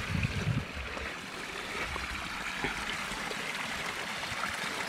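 Artesian spring water running steadily out of a small outlet and trickling down a shallow stream bed. A few low thumps near the start.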